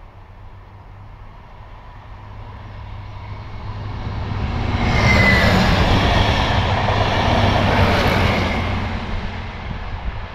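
SKPL SN84 diesel multiple unit approaching, passing close by and moving away: engine hum and wheels rolling over the rails. It builds slowly, is loudest about five to eight seconds in, and fades toward the end. A brief high squeal comes about five seconds in.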